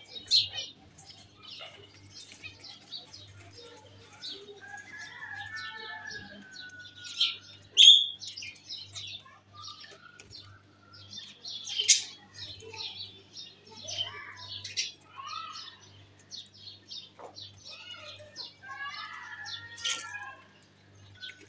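Pet budgerigars in a wire cage chirping, many short high chirps one after another, with a few sharp taps and clicks standing out among them.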